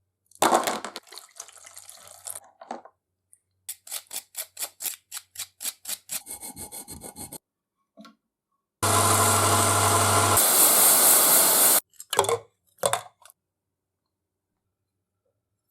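Tools working an antique ox-tongue iron. First comes a single knock that fades away, then about a dozen quick rubbing or scraping strokes at roughly four a second. Then a loud, steady machine noise with a low hum runs for about three seconds and stops, followed by two short scrapes.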